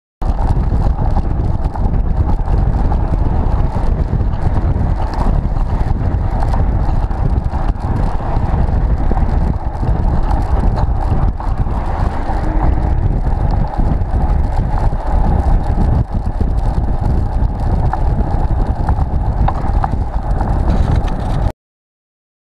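Wind buffeting the microphone of a camera mounted on a moving road bicycle, with road and passing-traffic noise beneath. It is loud and steady throughout, then cuts off abruptly about a second before the end.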